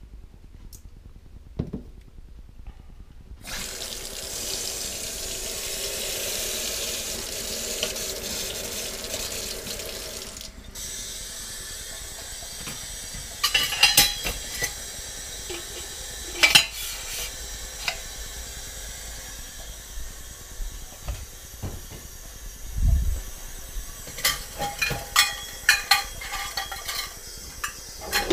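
Kitchen tap running into a stainless steel sink, strongest for about seven seconds and then easing off. Dishes, glasses and cutlery clink and knock as they are handled and set into a plastic dish rack, in scattered single clinks at first and a quick run of them near the end.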